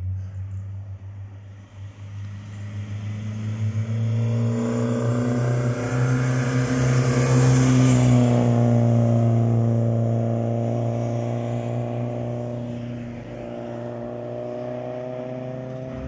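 BMW E30 M3 rally car coming through at racing speed: its engine note builds as it approaches, is loudest about halfway through as it passes close, then fades as it drives away, still audible at the end.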